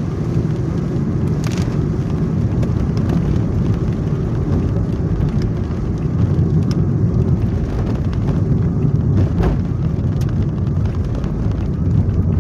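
Car driving, heard from inside the cabin: a steady low rumble of engine and road noise, with a few sharp taps here and there.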